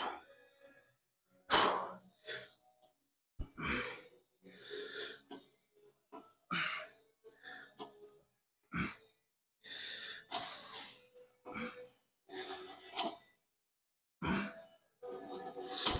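A man breathing hard through a set on a seated shoulder press machine: short, forceful breaths and wheezy exhales, roughly one or two a second, the effort of pressing the weight.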